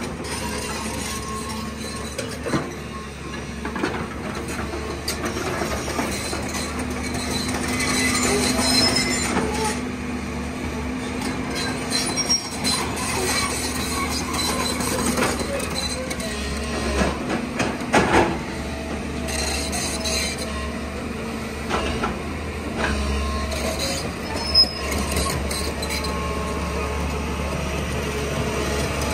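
JCB JS205 tracked excavator's diesel engine running steadily while the machine works, with metallic squeaks and clanks from its steel tracks and bucket and a few sharp knocks.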